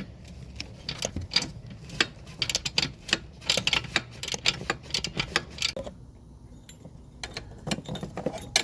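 Metal hand tools clicking and ticking in quick, uneven runs, typical of a ratchet working loose an exhaust oxygen sensor. There is a short pause about six seconds in, then more clicks.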